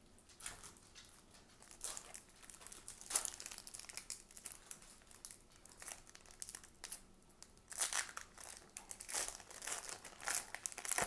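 A foil baseball card pack wrapper crinkling in irregular bursts as it is handled and torn open by hand.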